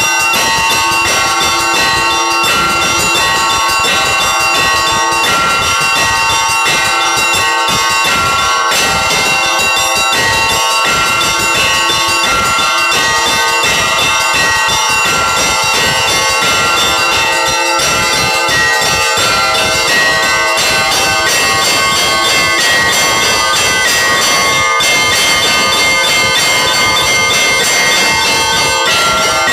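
Orthodox church bells rung in a continuous Easter peal: several bells of different pitches struck in quick, overlapping strokes, their tones ringing on together.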